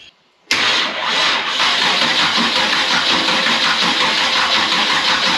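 Starter cranking a Chevrolet small-block V8 that starts about half a second in and keeps turning with a steady rhythm, without the engine catching. The engine has sat for months and is being cranked without starter spray to draw fuel through the fuel filter into the carburettor.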